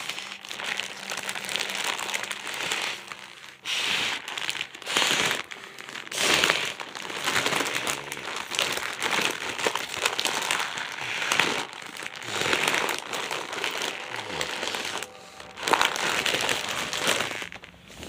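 An empty chip bag crinkling and rustling as it is blown up by mouth, the crackling swelling and falling back again and again as the bag fills and is handled.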